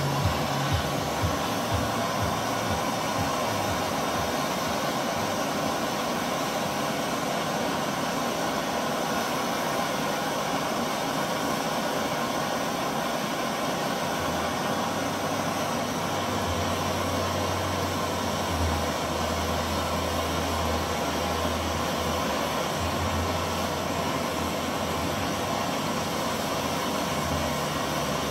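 Handheld gas torch flame hissing steadily while it heats a bronze casting at a filler rod, a brazing joint being made.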